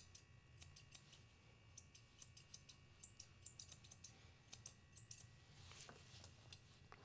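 Faint, irregular snipping of curved grooming shears trimming and rounding the hair around a small dog's feet.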